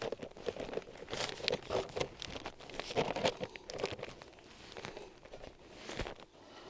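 Paper sack of diatomaceous earth crinkling and rustling as it is shaken, sifting powder out onto wood-flake chicken bedding. The crinkling is busiest for the first four seconds, then thins out, with one sharp crackle near the end.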